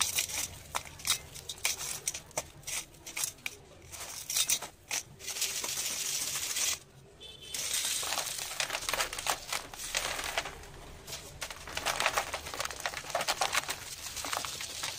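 Dry sand clumps crunched and crumbled by hand, a run of separate sharp crackles. From about five seconds in, the loose sand pours and is sifted through a plastic sieve basket, a steady gritty hiss full of small crackles, broken by a short pause about seven seconds in.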